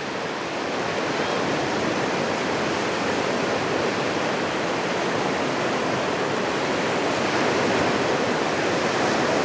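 Surf washing on a beach: a steady rushing of breaking waves with no clear pauses.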